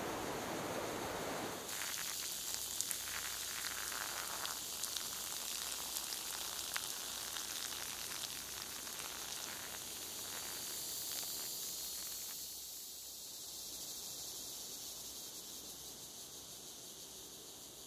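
Surf washing on a beach for about the first second and a half, then an abrupt change to forest ambience: a steady high hiss with scattered crackles of leaves and twigs underfoot as someone climbs through undergrowth. The crackling thins out after about twelve seconds, leaving only the high hiss.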